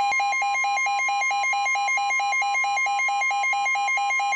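NOAA Weather Radio's 1050 Hz warning alarm tone, one steady tone, announcing a severe thunderstorm warning. Over it a weather radio's rapid, evenly pulsing alert beeps sound.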